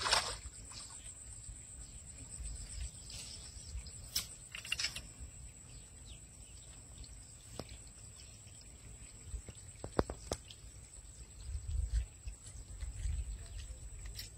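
Grass rustling with scattered clicks and low thumps as a freshly caught fish is handled and unhooked on the ground, over a steady high-pitched thin tone.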